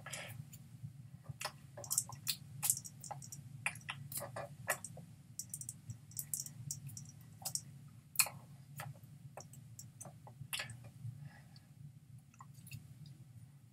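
Irregular soft clicks and taps from a person signing, hands striking and brushing each other, over a steady low hum.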